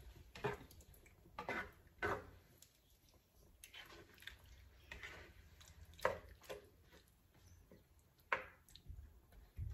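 Spatula stirring pork in a thick coconut-cream sauce in a skillet: scattered soft scrapes against the pan and wet squishes, irregular and fairly quiet.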